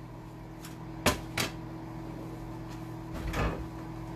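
Microwave oven running with a steady hum as it melts butter. Two sharp knocks come about a second in, then a longer thud and rustle near the end as the refrigerator door is opened.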